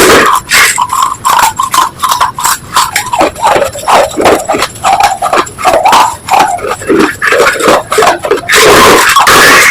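Close-miked crunching and chewing of brittle slate pencil and clay pieces: a quick irregular run of sharp crackles, turning into a denser, continuous grinding crunch near the end.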